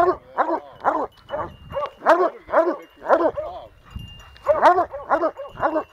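Plott hounds barking treed, a fast run of loud, ringing barks about two a second, more than one dog: the chop of hounds holding a bear up a tree.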